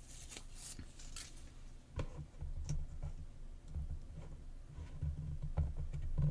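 Faint handling noise of a paper construction strip being lined up against the edge of a chipboard box: light rustling with a few soft clicks and low bumps on the table.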